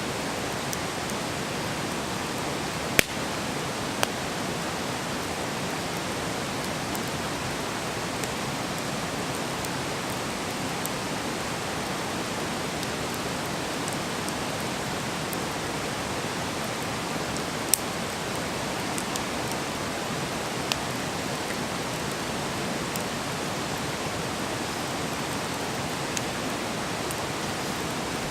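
Wood campfire burning with a steady hiss, broken by a few sharp pops and crackles, the loudest about three seconds in and again near the middle.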